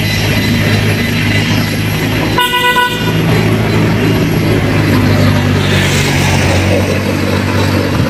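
A motor vehicle's engine running steadily, with one short horn toot about two and a half seconds in.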